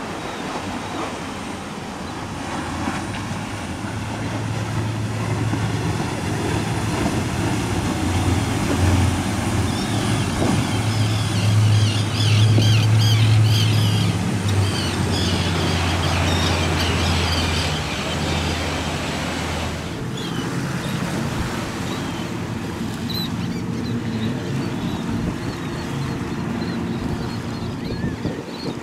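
Engines of a large sportfishing yacht running at speed through rough inlet water: a low drone that swells and then cuts off about two-thirds of the way through, over the rushing wash of waves and wind on the microphone.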